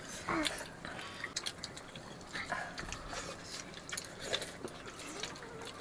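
Meal sounds: scattered small clicks and knocks, with a brief faint vocal sound soon after the start and another near the end.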